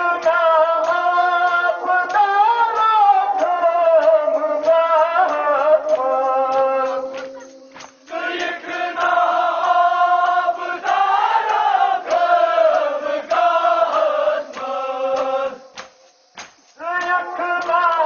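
A group of voices chanting a nohay, a Muharram lament, together in long melodic phrases, with a short break about eight seconds in and another near the end.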